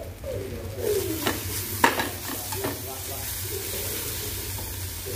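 Grated carrots sizzling in ghee in a non-stick frying pan while a slotted spatula stirs and turns them. The sizzle rises about a second in, and a few sharp scrapes and knocks of the spatula against the pan come through; the sharpest is about two seconds in.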